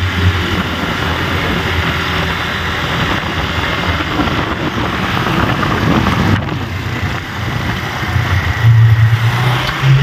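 Motorcycle engine running while riding, with wind rushing over the microphone. The engine note swells louder for a moment near the end.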